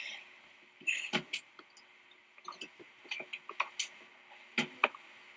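Scattered light clicks and taps, some in quick pairs, the loudest a little under five seconds in.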